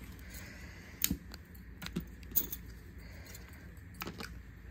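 A handful of sharp, scattered clicks and clinks as tealight candles in metal cups are handled on a steel tray and lit with a stick lighter.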